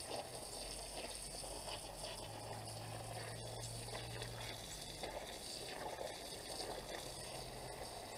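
Water from a garden hose pouring steadily onto muddy soil and pooling, a continuous trickling splash.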